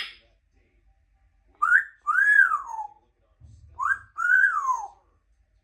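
African grey parrot whistling the same two-note phrase twice, a short rising note followed by a longer note that swoops up and falls away.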